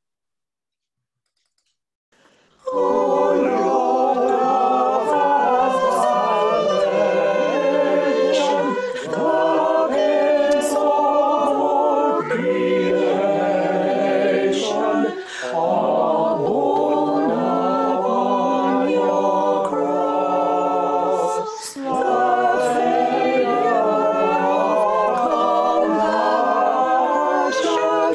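A choir singing a cappella, starting after about two and a half seconds of silence and going on in long phrases with brief breaks between them.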